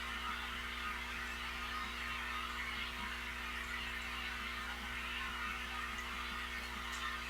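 Steady electrical hum with an even hiss above it: the running sound of aquarium equipment.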